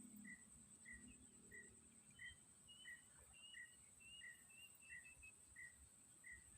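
Faint swamp ambience: a steady high insect drone, a short chirp repeating about every two-thirds of a second, and a brief run of higher bird notes in the middle.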